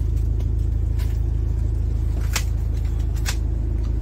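Steady low rumble of a car heard from inside its cabin, with a few light clicks over it.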